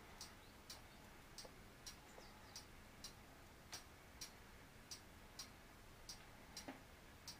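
A clock ticking faintly in an uneven tick-tock rhythm, a little under two ticks a second, over near-silent room tone.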